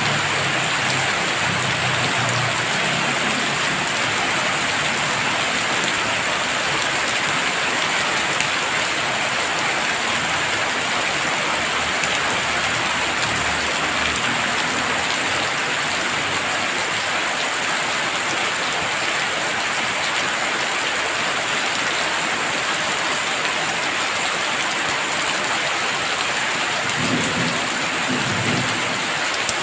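Heavy rain falling steadily, a dense even hiss of drops on surfaces. Low thunder rumbles in under it near the start and again briefly near the end.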